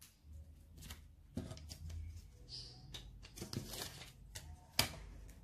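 Light desk handling sounds: scattered small clicks, taps and short rustles as a plastic folding ruler is picked up and laid across the paper pages of a planner insert. The sharpest tap comes near the end.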